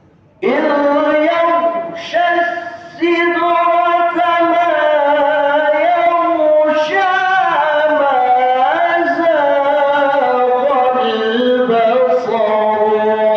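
A man reciting the Quran in a melodic, chanted style, holding long ornamented notes that glide and turn in pitch. There are brief pauses for breath around two and three seconds in.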